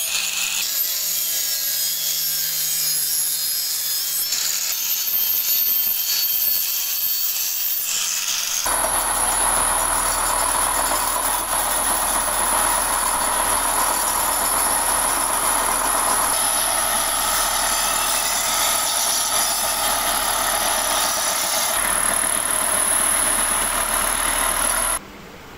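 Angle grinder with an abrasive disc grinding rust off a steel spade blade. About eight seconds in it gives way to a stationary belt sander grinding the blade's face: steady grinding noise with a steady high whine and a low hum, which cuts off suddenly near the end.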